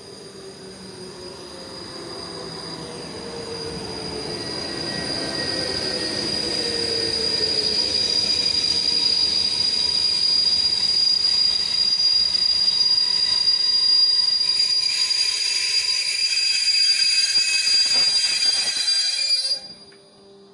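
A České dráhy electric locomotive and its passenger coaches running into the station and slowing: a falling whine as the locomotive draws near, growing louder, then the coaches rolling past with a steady high-pitched wheel and brake squeal. The sound cuts off suddenly near the end.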